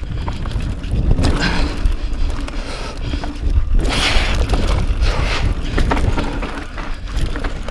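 Mountain bike ridden down a rough trail: wind buffeting the microphone, with tyres and frame clattering over rocks in repeated surges.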